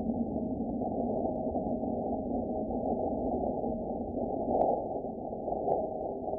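Seismometer recording of Martian ground motion from the InSight lander, 45 minutes of seismic data sped up into audible range: a steady hissing rumble. A short swell with a click comes about four and a half seconds in, and a fainter click about a second later.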